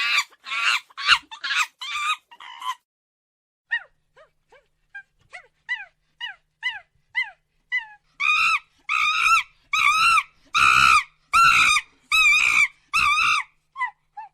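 Monkey calls: a quick run of harsh calls, then short high notes that each fall in pitch, about two a second, then loud drawn-out screeching calls about one and a half a second apart.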